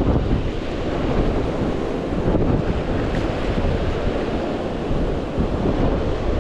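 Wind buffeting the microphone in a steady low rumble, over surf washing against the rocks of a jetty.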